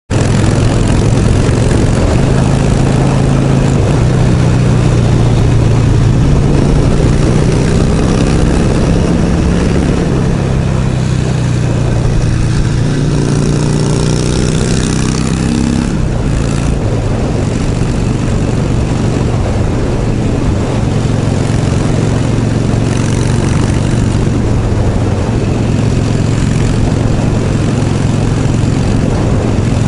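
2005 Harley-Davidson Sportster 1200's air-cooled V-twin engine running under way at cruising speed, with wind rushing past. The engine note shifts in pitch for a few seconds around the middle, then settles back to a steady note.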